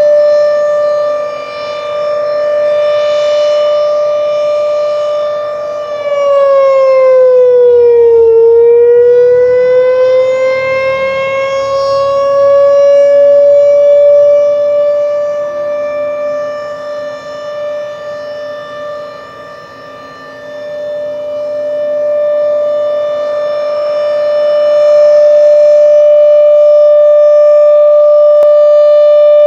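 Low-pitched Thunderbeam RSH-10 rotating outdoor warning siren sounding a steady alert tone. About six seconds in its pitch sags and climbs back over several seconds, and its loudness swells and fades as the rotating horn turns toward and away from the listener.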